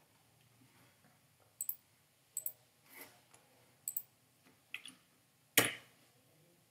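Scattered keystrokes on a computer keyboard: a handful of short, sharp clicks about a second apart, with one louder tap near the end.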